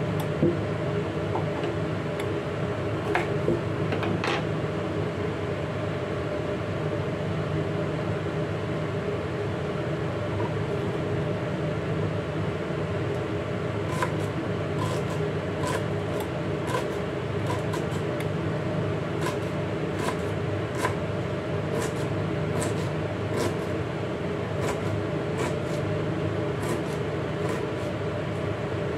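Kitchen knife chopping green beans on a cutting board: sharp taps of the blade on the board, irregular, about one or two a second from about halfway through. Under them runs a steady mechanical hum like a fan or appliance.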